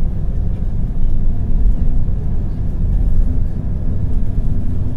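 Steady low rumble of a moving vehicle, with a faint steady drone under it.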